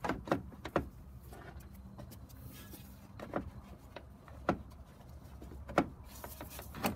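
Scattered knocks and clicks of hard plastic, about seven in all, as a car radiator is pressed and clipped into its mounts, over a faint low hum.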